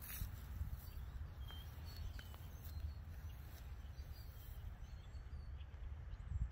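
Outdoor ambience: a steady low rumble on the microphone with a few faint, short bird chirps scattered through it.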